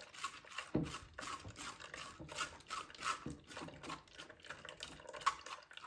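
Metal spoon scraping and stirring green vegetable pulp in a mesh strainer in short, irregular strokes, pressing the juice through. A single low knock about a second in.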